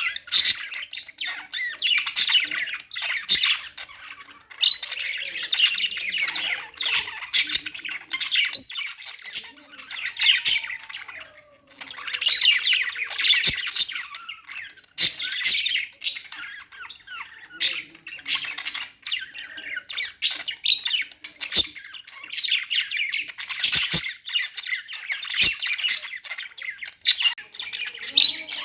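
Budgerigars chattering and warbling in bouts of a few seconds, mixed with sharp squawks and clicks.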